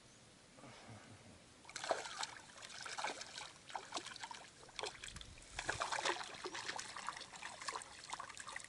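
Water splashing and trickling close by in irregular bursts, starting about two seconds in and going on as a busy crackle of small splashes.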